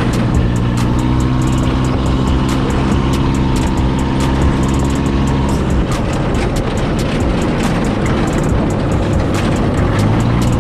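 Off-road buggy engine running at a steady pitch while driving, with frequent clicks and rattles over it. The engine note becomes less even around the middle, then settles steady again near the end.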